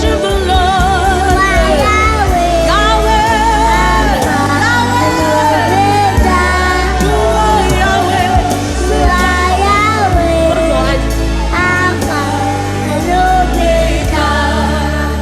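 Live gospel worship music: a high child's voice singing a melody with vibrato over a band with steady, sustained bass notes.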